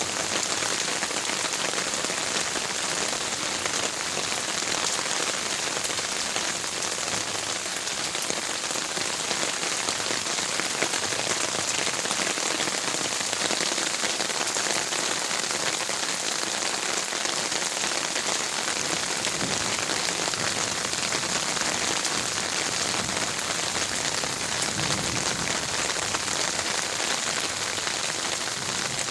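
Heavy rain falling steadily on garden leaves, a dense, even hiss of drops with no let-up.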